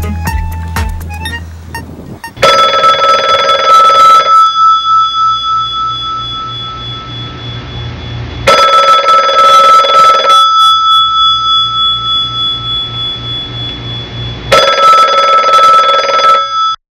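A telephone's bell rings three times, each ring about two seconds long with a fast rattling flutter, about six seconds apart in the North American ring cadence. Each ring dies away slowly, and the last one cuts off abruptly.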